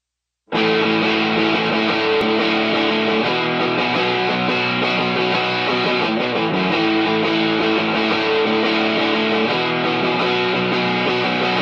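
Guitar-led background music starting about half a second in, with sustained strummed chords.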